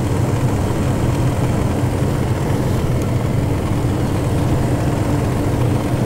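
Tour bus engine and road noise heard from inside the cabin while driving: a steady low rumble with a faint steady hum over it.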